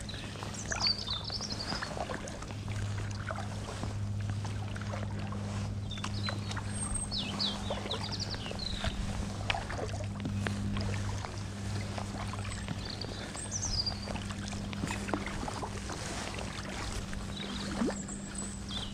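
Kayak paddle dipping and dripping water on a calm canal, with small birds chirping now and then, over a steady low hum.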